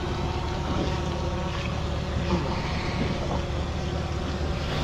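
Wind buffeting the microphone and water moving around a kayak while a large halibut is held at the surface beside it, over a steady low hum.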